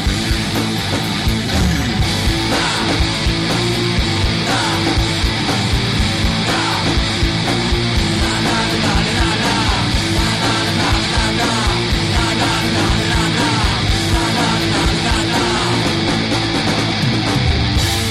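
Loud rock music with electric guitar and drums playing an instrumental passage, with no singing.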